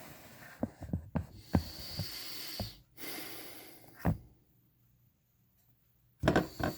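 A person breathing heavily and noisily, in long hissing breaths broken by a few short sharp sounds. The breathing then stops for a couple of seconds, and a loud short double burst comes near the end.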